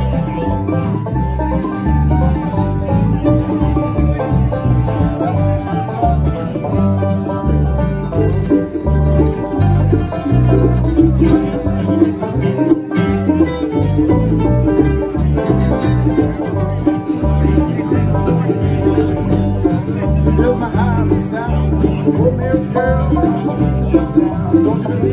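Live bluegrass band playing an instrumental break: rolling banjo, mandolin and strummed acoustic guitar over a steady electric bass line.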